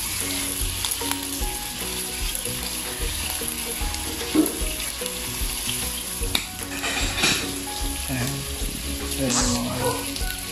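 Pork belly slices sizzling steadily on a hot round grill pan over a portable gas stove, with tongs now and then clicking against the pan.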